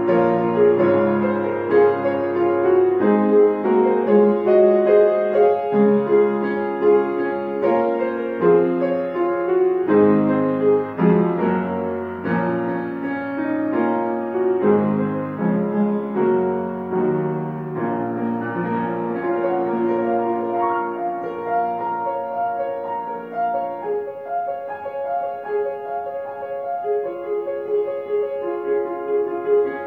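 Solo grand piano playing slow, sustained chords and melody, growing somewhat softer in the second half.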